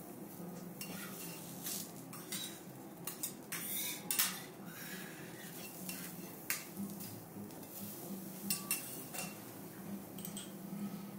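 Steel knife and spatula clinking and scraping against a teppanyaki griddle as eggplant is cut on it. There is a cluster of sharp metal taps a second or two in, then a few scattered taps later, over a faint steady hum.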